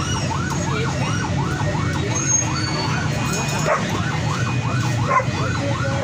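Electronic siren in fast yelp mode, its pitch sweeping up and down about three times a second without a break, over a low rumble.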